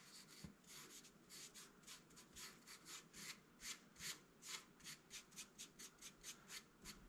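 Fingertips rubbing sawdust into a glue-filled crack in a Leyland cypress bowl: faint, dry rubbing strokes, about three a second, getting quicker in the second half.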